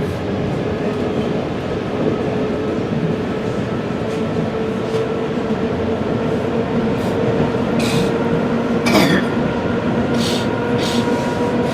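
ЭД4М electric multiple unit running between stations: continuous wheel-on-rail running noise with a steady whine that rises slightly in pitch as the train gathers speed. A few short high squeals come in over it from about eight seconds in.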